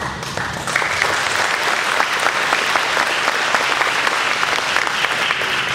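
Audience applauding. Many hands are clapping, and the applause gets much stronger under a second in, then holds steady.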